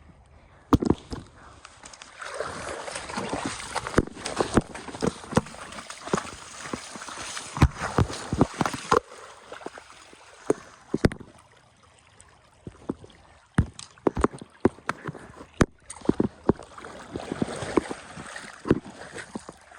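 Water splashing and sloshing in bursts, with many sharp knocks and thumps scattered through.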